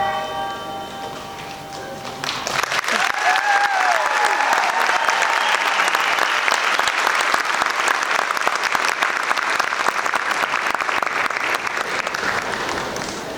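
Music dies away, then an audience applauds. One voice cheers as the clapping begins, and the clapping tapers off near the end.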